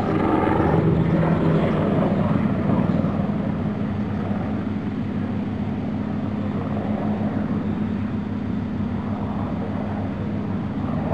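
Eurocopter Tigre twin-turbine attack helicopter in flight overhead: a steady drone of rotor and turbines, a little louder in the first few seconds, then holding even.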